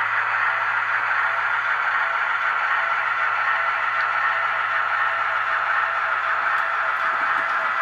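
HO-scale model electric locomotive running slowly on the layout: a steady, even hiss with a faint low hum beneath, without change.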